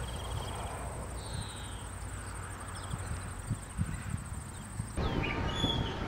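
Horses shifting on grass in a pasture, a few soft hoof thuds over a steady low outdoor rumble. A thin high steady tone runs underneath and stops about five seconds in, when the background changes abruptly.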